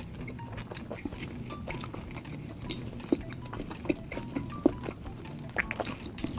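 Close-miked chewing of a McDonald's spicy beef burger: soft wet mouth smacks and small clicks, irregular and a little louder near the end.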